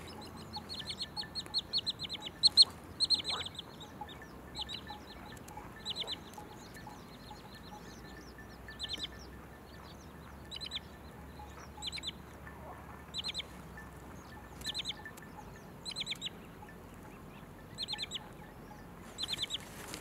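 A small songbird singing: short, rapid trills of high notes, repeated every one to two seconds, loudest and densest in the first few seconds.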